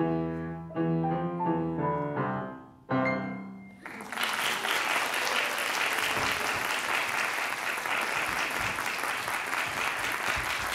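Upright piano playing a short phrase of notes climbing in pitch, ending on a final note about three seconds in that rings out and fades. About four seconds in, an audience starts applauding and keeps clapping steadily.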